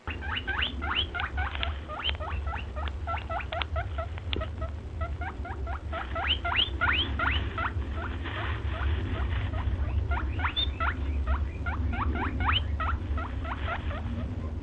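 Small animal's calls: a long, rapid series of short rising chirps, about four or five a second, over a steady low rumble.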